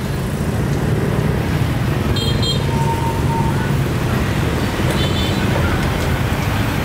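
Busy street traffic noise: a steady rumble of vehicle engines passing close by, with brief high-pitched beeps about two seconds in and again about five seconds in.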